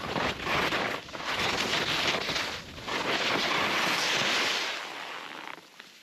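Skis carving on snow while the filmer follows, with wind rushing over the microphone, in about three long swells that fade away near the end.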